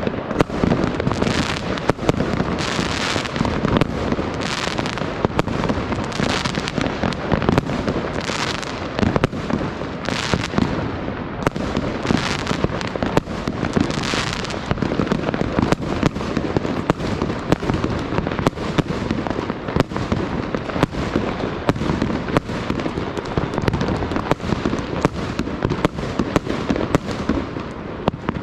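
New Year's fireworks going off all around: a dense, continuous barrage of bangs and crackling from many shells and firecrackers at once.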